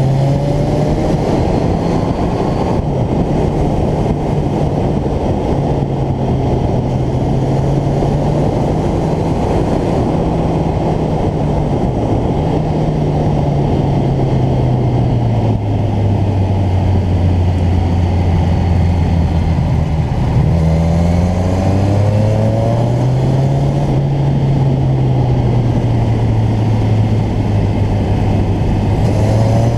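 Motorcycle engine running under heavy wind rush on the microphone, its note slowly rising and falling with the throttle through the bends. It sinks lowest for a few seconds past the middle, then climbs again about twenty seconds in.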